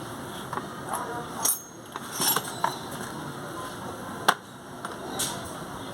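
Hand tools and metal parts clinking and knocking during work on a motorcycle engine: several separate sharp clicks, the loudest a little past four seconds in.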